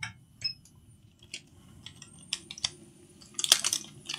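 Light metallic clicks and taps of small tools on a laptop motherboard, scattered, with a quick cluster of them about three and a half seconds in.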